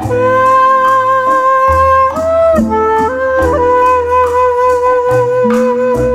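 Instrumental background music: a slow melody of long held notes on a wind instrument, over bass notes and light percussion.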